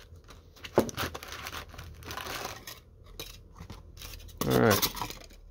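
Cardboard box of sticker packs being handled and opened by hand: flaps scraping and crinkling as packs are pulled out, with a sharp snap about a second in.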